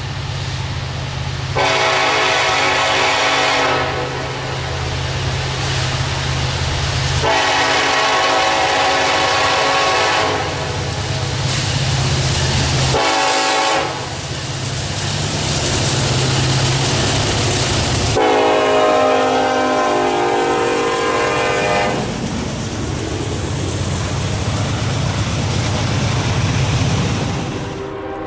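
Locomotive horn sounding the grade-crossing signal: two long blasts, one short, then a final long one. Under it is the steady low rumble of the locomotive, and wheel noise builds in the second half as the train passes.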